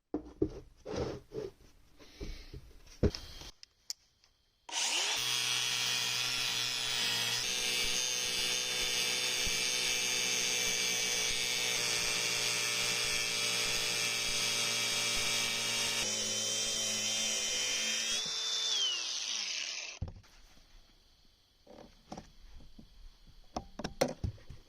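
A few light metal clicks and knocks, then a shop power tool's motor starts about five seconds in and runs steadily under a small machine-tool load for about fourteen seconds. It winds down with falling pitch, followed by a few more faint clicks of tools being handled.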